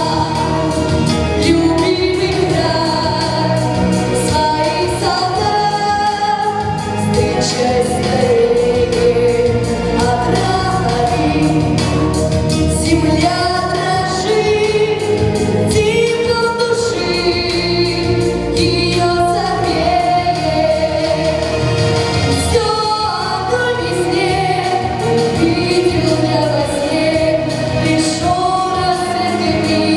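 A song: sung vocals, with a choir-like sound, over instrumental accompaniment with a steady beat.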